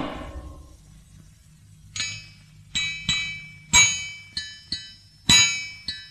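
Music from the film's soundtrack: a run of about eight bell-like metallic strikes starting about two seconds in, unevenly spaced and of varying loudness, each ringing on and fading. It begins over the fading tail of a louder sound.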